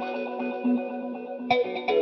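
Background music: guitar run through effects playing a quick run of notes, with a sharp new attack near the end.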